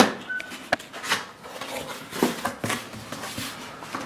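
A cardboard box being opened and its contents handled: irregular rustling, scraping and light knocks.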